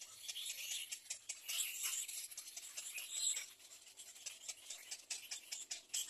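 Little egret chicks begging for food at the nest: a fast, high-pitched ticking and scratchy chatter of many rapid clicks, with the rustle of the chicks scrambling in the twigs as they tussle over a fish.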